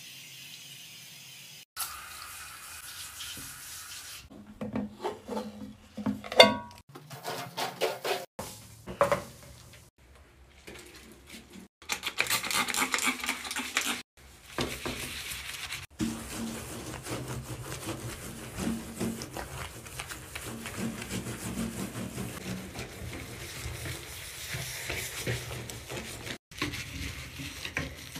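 Bathtub-cleaning sounds in several short cuts: cleaning gel squirted, scrubbing with a sponge, and water running into the tub.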